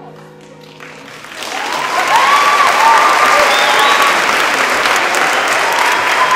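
Concert audience applause that starts about a second in, after the last of the orchestra's closing chord fades, and quickly swells to full, steady clapping, with cheers rising over it.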